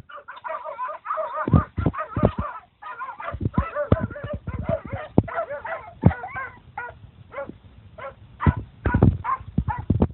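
Young Bosnian coarse-haired hounds giving rapid, wavering yelps and barks at a wild boar, baying at game. Many sharp knocks are mixed in among the calls.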